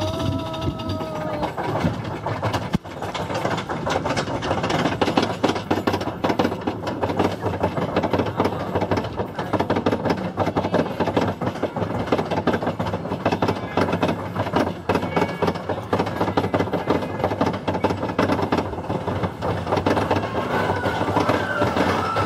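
Roller coaster train clattering and rattling along its track at speed, heard from a seat on board. A rider's held shout comes at the very start, and voices are heard again near the end.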